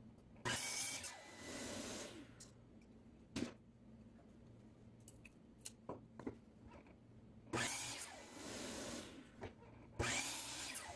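DeWalt compound miter saw cutting wooden strips three times: once near the start and twice near the end, each a brief burst of blade noise that dies away. Short wooden knocks between the cuts as the pieces are handled.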